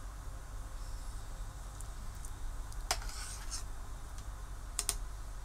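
Metal spoon clinking and scraping against a stainless steel soup pot while stirring and scooping: a few sharp clicks, the clearest about three seconds in and a quick pair near the end.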